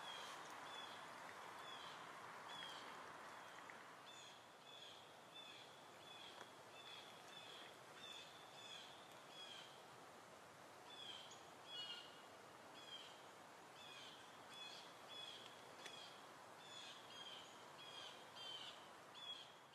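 Faint outdoor quiet with a small bird chirping short, high notes over and over, about two a second, over a soft hiss.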